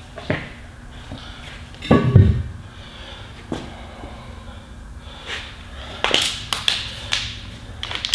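Scattered knocks and clicks from handling a truck tire and a tire-treatment pack on a concrete floor, with one heavier thud about two seconds in and a quick run of sharp clicks near the end.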